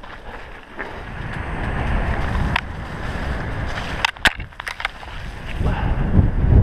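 Mountain bike running fast down a wet, muddy trail: tyres hissing and spattering over mud and gravel, with wind buffeting the microphone. A few sharp clacks from the bike jolting over bumps come about two and a half seconds in and again around four seconds in.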